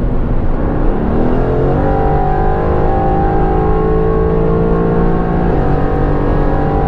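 Mercedes-AMG GT R Pro's twin-turbo V8 with an FI straight-pipe exhaust, heard from inside the cabin at full throttle at Autobahn speed. A kickdown from seventh to fifth sends the revs climbing about a second in, then the engine pulls hard and shifts quickly up into sixth about five and a half seconds in.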